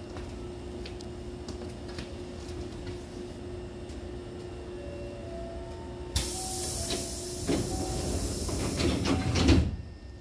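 Hankyu train's sliding passenger doors closing: about six seconds in, a sudden loud hiss of air starts from the door engine. It builds as the door panels slide shut, and it ends with the loudest thump when they meet near the end, over the steady hum of the stopped train.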